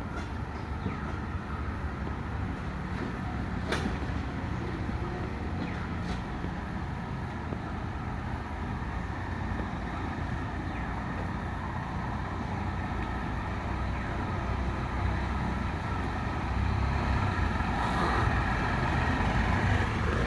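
A vehicle running along a road: a steady engine rumble with road noise that grows somewhat louder near the end, and a couple of sharp knocks about four and six seconds in.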